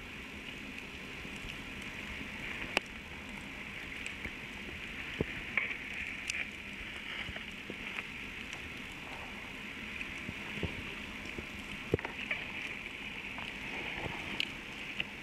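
Underwater ambient sound: a steady crackling hiss with scattered sharp clicks, the loudest about three seconds in and again near twelve seconds.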